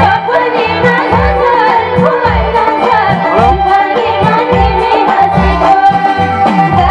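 Live Nepali dohori folk music: a hand drum keeps a steady repeating beat under sustained held notes, with a sliding melody line over them.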